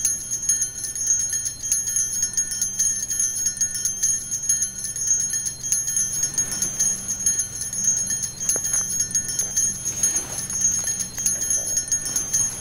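Altar bells (Sanctus bells), a cluster of small bells shaken continuously in a rapid, steady jingling ring, marking the elevation of the chalice at the consecration.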